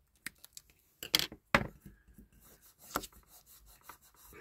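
Scissors snipping masking tape and tools being set down on a cutting mat: a few sharp clicks and knocks, with faint rubbing as the tape is pressed down onto a diecast model.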